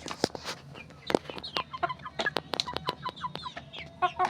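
Chickens clucking with short calls that fall in pitch, mixed with many sharp taps and clicks.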